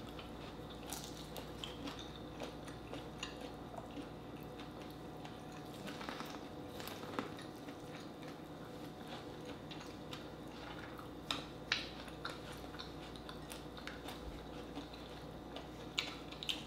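Close-up eating sounds: chewing and biting food, with scattered small clicks and wet squishes from hands peeling shrimp and handling corn on the cob, over a faint steady hum.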